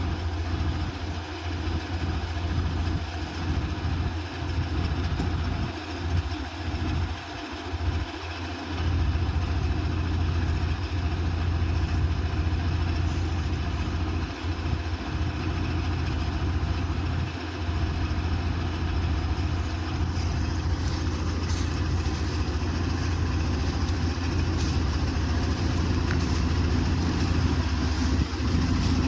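Combine harvester's diesel engine running steadily with a low, even hum. Faint repeated clicks join in about two-thirds of the way through.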